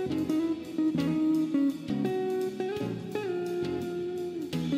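Background music: a plucked-string melody, with one note held for about a second near the end.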